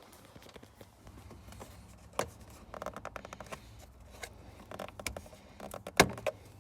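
Trim panel under the steering wheel being worked loose by hand: scattered clicks, light rattling and scraping of the panel and its clips, with a sharp knock about two seconds in and a louder one near the end.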